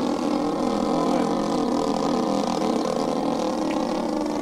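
The twin O.S. 30cc engines of a large radio-control scale Cessna 310 running steadily together, their slightly wavering pitches overlapping.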